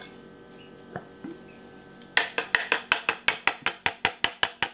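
Rapid sharp taps, about seven a second, starting about two seconds in: a plastic blender cup is knocked upside down against the rim of a stainless steel saucepan to shake out the last of a thick ground sauce.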